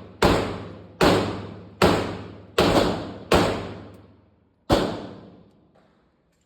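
Six gunshots in an indoor range, each followed by a long echoing decay. The first five come about three-quarters of a second apart, and the last follows after a longer pause.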